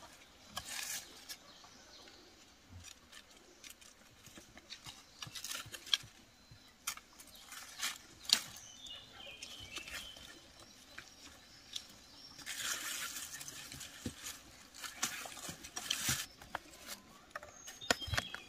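Tomato vines and leaves rustling in several short bursts, with scattered sharp clicks and light knocks as tomatoes are picked or cut from the stems and dropped into a woven bamboo basket.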